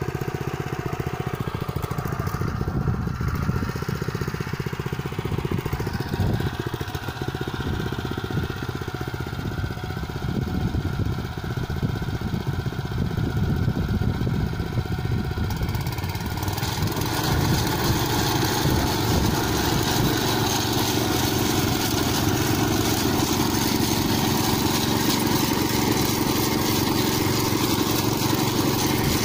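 Tractor engine running steadily as it pulls a corn planter through the soil. About halfway through, the sound gets a little louder and brighter.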